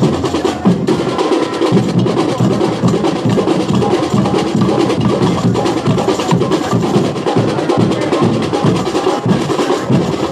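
Samba percussion: drums and snare drums playing a fast, dense samba rhythm, with higher clacking percussion on top.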